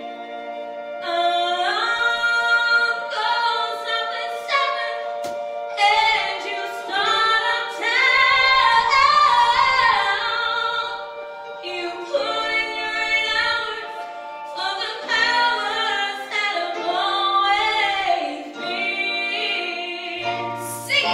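Women's voices singing a musical-theatre song in close harmony, with long held chords.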